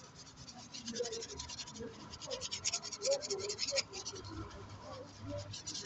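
Small bristle brush scrubbing an alloy wheel coated in foamy wheel cleaner, in quick back-and-forth strokes, several a second, working loose embedded brake dust. The scrubbing is busiest in the middle.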